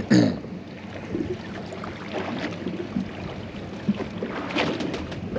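Background noise aboard a small fishing boat at sea, with a faint steady low hum, and a short low voice-like grunt right at the start.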